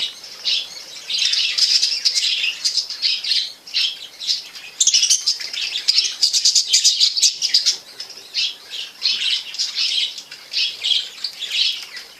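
Budgerigars chattering and warbling in quick, scratchy runs of chirps, broken by short lulls.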